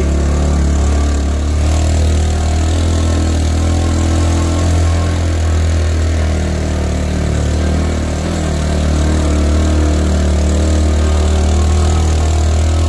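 Small motorcycle engine running steadily with a low drone as it carries a passenger up a steep lane.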